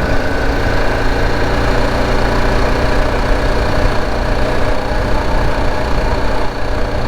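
Motorcycle engine running steadily at a constant note.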